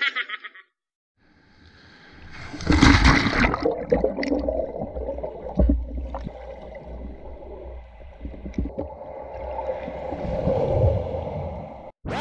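Water gurgling and sloshing around an underwater camera as a diver moves through the water, with a louder surge of water about three seconds in and scattered small clicks.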